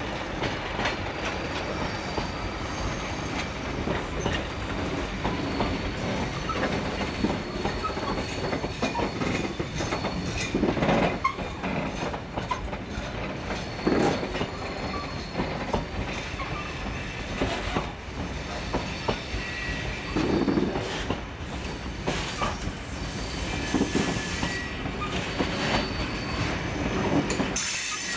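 A freight train's box wagons rolling past over pointwork. Wheels clatter on the rail joints, with several louder squeals and clanks.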